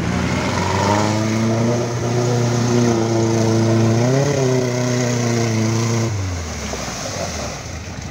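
Volkswagen Baja Bug's air-cooled flat-four engine pulling through flooded mud, with water splashing under the tyres. The engine revs up briefly about four seconds in, and its note fades away after about six seconds.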